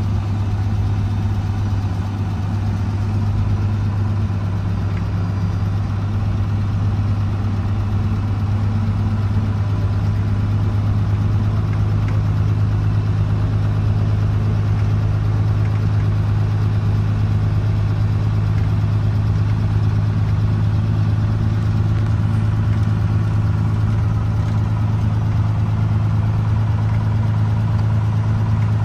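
An engine running steadily at idle: a constant low hum that does not change.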